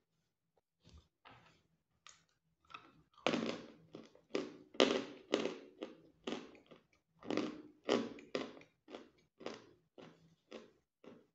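Crunchy dry croutons being chewed close to the microphone: a run of sharp crunches about two a second, sparse and soft at first, loudest through the middle, then tapering off near the end.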